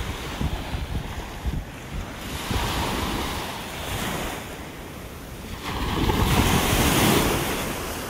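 Small surf breaking and washing up the sand in two swells of rushing water, the louder one about six seconds in, with wind buffeting the microphone throughout.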